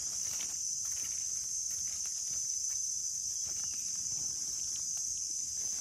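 A steady, high-pitched insect chorus, with faint small clicks and rustles of dry leaf litter and a knife being handled.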